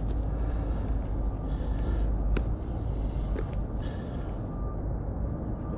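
Rustling, crunching handling of groundbait and pellets being pressed by hand into a method feeder, over a steady low rumble, with a sharp click about two and a half seconds in.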